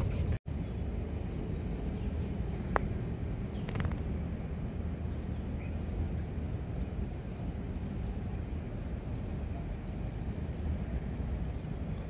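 Outdoor ambience: a steady low rumble with faint, scattered bird chirps, and a single sharp click about three seconds in. The sound drops out briefly about half a second in.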